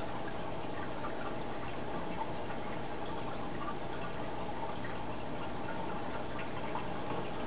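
Steady trickle and hum of the aquarium's water circulation, with scattered faint small ticks and pops, over a constant thin high-pitched whine.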